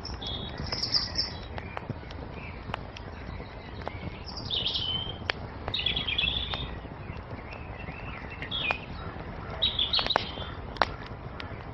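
Wood fire crackling with frequent sharp pops over a low steady hiss, while songbirds chirp in short phrases about half a dozen times.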